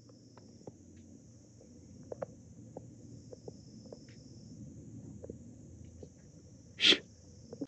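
Quiet outdoor ambience: a faint low rumble with scattered small ticks, and one short, loud scuff about seven seconds in.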